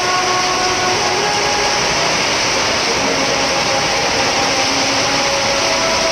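Traffic on a rain-soaked road: a loud, steady hiss with faint engine hum from passing vehicles.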